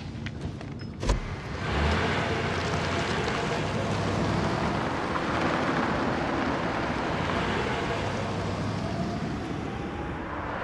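A sharp thump about a second in, then a taxi cab driving with steady engine and road noise.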